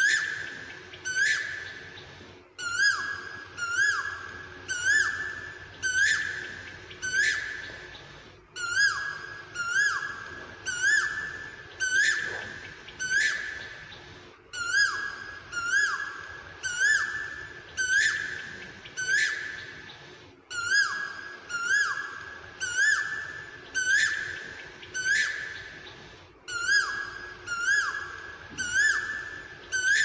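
Asian koel calling: a clear, pitched two-part call repeated steadily over and over, about once a second.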